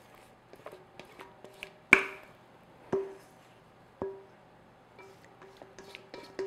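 Stainless steel mixing bowl knocked three times about a second apart while cake batter is scraped out of it into a metal loaf pan, each knock ringing briefly, with lighter clicks and scrapes in between.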